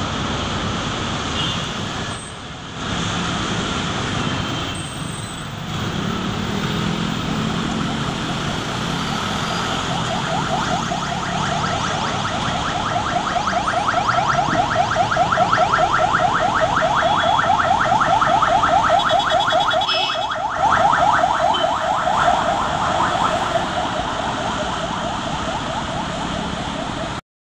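Heavy road traffic on a wide city avenue: car and motorcycle engines running and tyres passing as a stream of vehicles pulls away. A rapid pulsing buzz rises over it from about ten seconds in, is loudest midway and fades a few seconds before the end.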